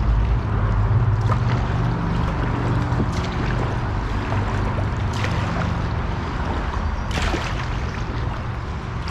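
Water splashing and lapping around a kayak on choppy water, with a low wind rumble on the microphone. Sharper splashes stand out about three, five and seven seconds in.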